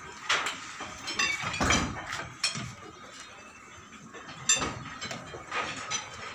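Irregular sharp clinks and knocks, like metal and brick being struck or handled among house-lifting screw jacks, the loudest about four and a half seconds in.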